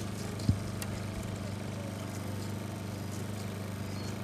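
A steady low hum, with one dull thump about half a second in.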